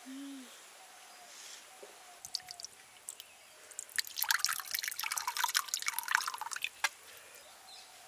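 Thick yellow sauce poured into a clay bowl, splashing and glugging for about three seconds starting about four seconds in.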